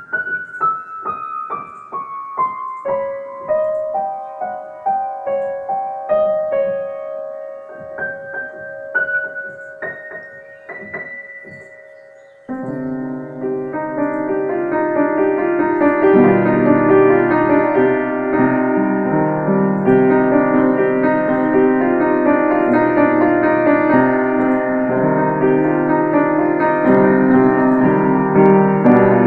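Piano music: a falling sequence of single notes, then about twelve seconds in an abrupt switch to fuller, louder sustained chords over low bass notes.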